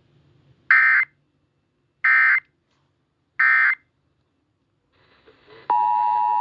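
Emergency Alert System end-of-message code: three short, loud digital data squawks about 1.4 seconds apart, the SAME "NNNN" bursts that close an alert. Near the end a click is followed by a steady, loud EAS two-tone attention signal.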